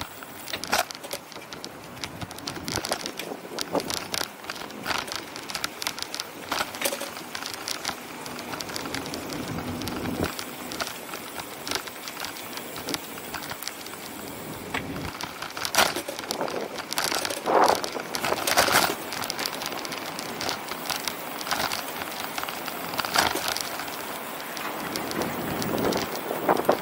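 Ride noise from a bicycle on city streets: irregular clicks and rattles over a steady rushing noise, busiest about two-thirds of the way through.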